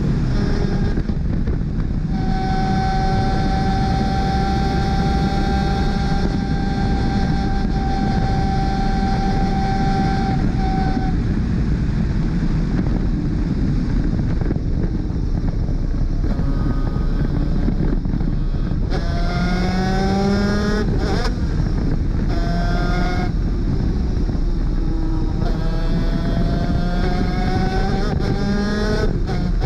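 Onboard sound of a 250cc two-stroke superkart engine at racing speed under heavy wind rush. The engine note holds steady for several seconds, then from about halfway through it climbs in pitch again and again with short breaks between, as the kart accelerates and shifts up through the gears.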